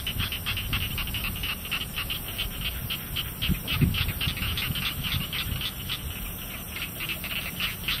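Rice-field night chorus: a rapid call repeating evenly at about five pulses a second, with a low rumble underneath and a couple of soft bumps near the middle.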